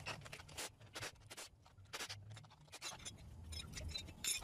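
Faint, irregular clicks and scratchy scrapes of metal being handled as a coil-spring compressor is backed off a strut spring.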